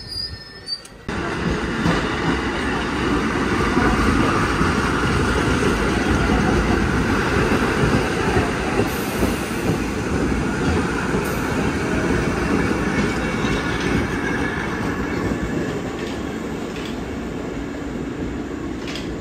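Vintage New York subway train passing close by on the adjacent track: a steady rumble and rattle of steel wheels on the rails, starting abruptly about a second in.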